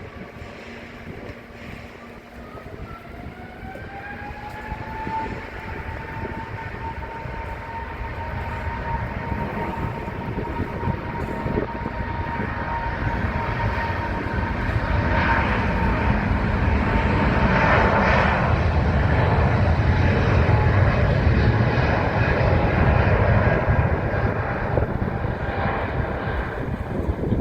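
Jet airliner engines: a whine that rises in pitch a few seconds in and then holds, while the engine noise builds steadily louder, peaks about two-thirds of the way through, and starts to fade near the end.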